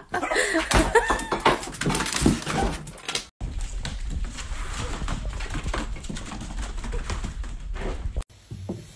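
Dogs whining in short, high, wavering calls for about three seconds. The sound then cuts to a steady low rumble with light scattered knocks.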